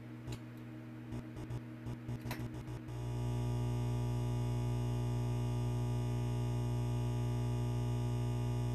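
Neon sign sound effect: a run of sharp electrical clicks as it flickers on, then a steady electrical hum from about three seconds in.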